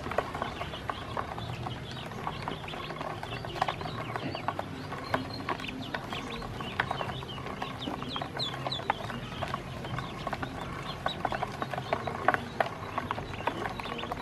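Ducklings peeping while they peck grain feed from a plastic basin, their bills tapping the plastic in quick, irregular clicks.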